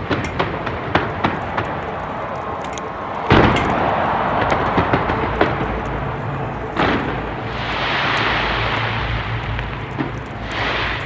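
Fireworks exploding: a run of sharp pops and cracks, a heavy boom about three seconds in and another about seven seconds in, with a spell of crackling between them and again near the end.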